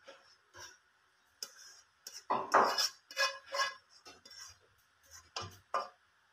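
Plastic spatula scraping and knocking inside a nonstick frying pan as wet squid in sauce is pushed out onto a plate: irregular scrapes and clinks, the loudest cluster a little over two seconds in.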